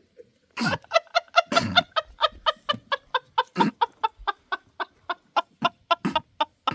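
Chicken clucking in a fast, even run of short calls, several a second, starting just under a second in.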